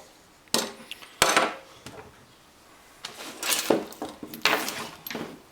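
Hard faucet parts being handled: two sharp clunks about half a second and just over a second in, then two stretches of clinking and scraping in the second half.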